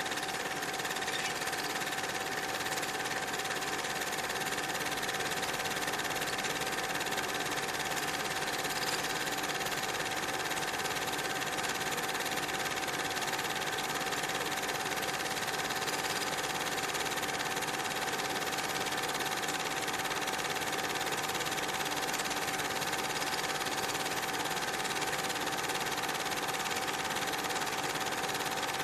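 Steady machine whirr and hiss with a constant high-pitched whine.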